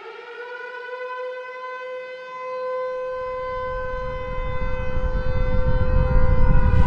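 A siren-like tone that rises in pitch over the first couple of seconds and then holds steady, with a low rumble swelling in beneath it from about halfway and growing louder toward the end.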